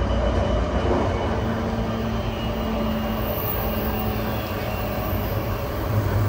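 Running noise inside a JR East E235-1000 series motor car on the move: a steady rumble of wheels on rail with a level hum from the Mitsubishi full-SiC VVVF inverter and traction motors, neither rising nor falling.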